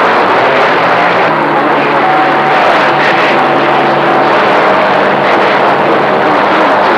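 CB radio speaker giving out a loud, steady rush of band noise on a crowded skip channel, the kind the operator calls 30 dB of noise, with a faint steady whistle from an interfering carrier for a couple of seconds near the middle.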